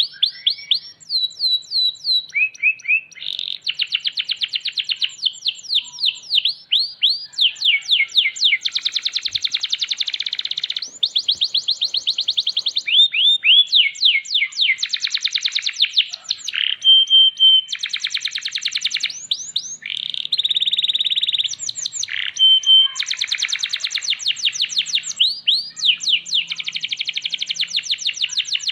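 Domestic canary singing a long, unbroken song made of fast trills: runs of rapidly repeated sweeping notes that switch to a new phrase every second or two, with a few short held whistled notes.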